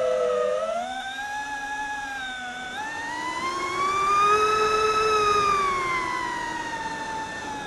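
Diatone Roma F5 FPV quadcopter's brushless motors and propellers whining, the pitch climbing from about half a second in to a peak around five seconds in as the motors speed up, then easing back down.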